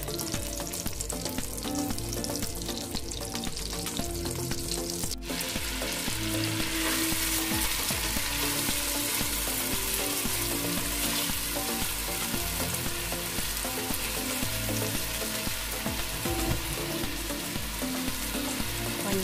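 Butter and oil sizzling in a pot. After a break about five seconds in, chopped onion fries in the fat and is stirred with a spatula, and the sizzle is louder.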